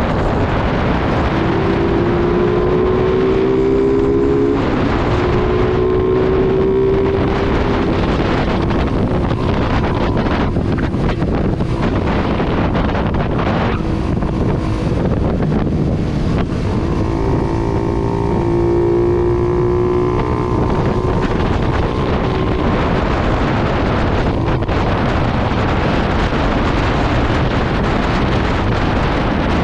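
Wind rushing over the microphone on a motorcycle at highway speed, steady and loud, with the engine running underneath. Twice a droning engine note comes up for a few seconds, rising slightly in pitch.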